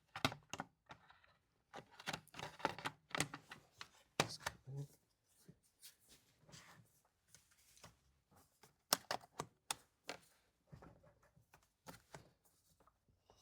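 Irregular clicks and knocks of plastic and metal parts on a Stihl MS180c chainsaw being handled and fitted, with no engine running.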